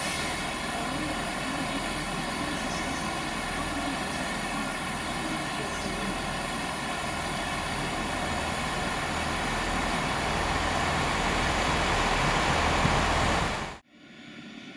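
Loco-hauled passenger train running over pointwork: a steady mechanical hum and rumble with a whine of several held tones. It grows a little louder, then cuts off abruptly near the end, leaving a much quieter hum.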